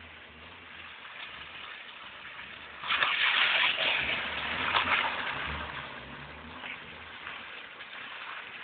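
BMW E30 318is spinning donuts through standing water: tyre spray and splashing, loudest for about two and a half seconds near the middle as the car sweeps close, over the low drone of its four-cylinder engine.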